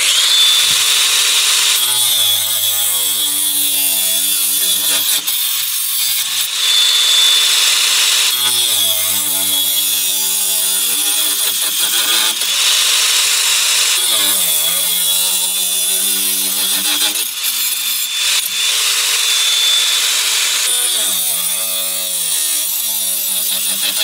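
DeWalt DCG405B 20V brushless 4-1/2-inch angle grinder switched on and running with a steady high whine, cutting a metal pipe with a cut-off disc. A lower, wavering hum comes up in four spells as the disc bites into the pipe.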